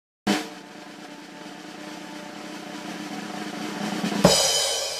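Channel logo intro music sting: a hit, then a sustained chord with percussion that grows steadily louder. It peaks in a sharp crash about four seconds in, which rings and fades away.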